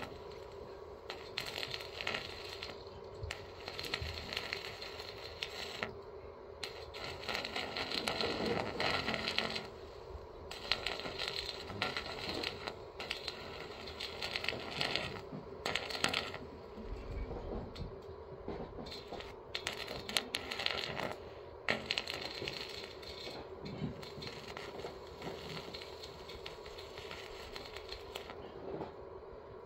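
Stick welding on a steel box-section beam with a small inverter arc welder: a sputtering crackle in runs of a second or two, stopping and starting, over a faint steady hum.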